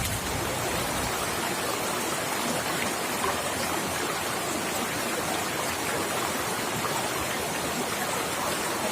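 Steady, even hiss of water, such as heavy rain or running water.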